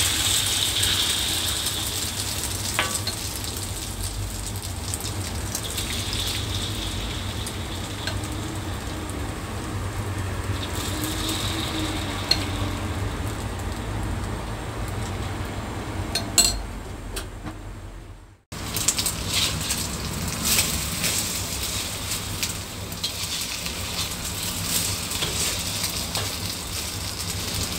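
Egg and enoki mushroom omelette batter sizzling and crackling as it fries in hot oil in a steel wok. The sizzle drops out for a moment about two-thirds of the way through.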